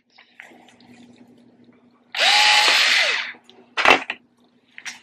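Small Ryobi 4-volt cordless screwdriver with a drill bit running for about a second, boring a hole in a dried egg gourd; the motor's whine holds and then drops as it stops. A single sharp knock follows.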